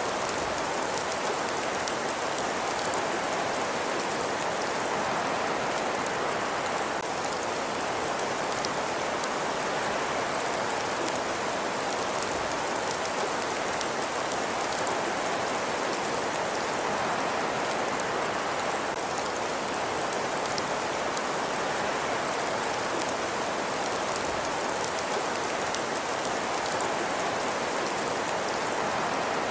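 Steady ambience soundtrack: an even, unbroken hiss like falling rain, speckled throughout with fine light ticks or crackles.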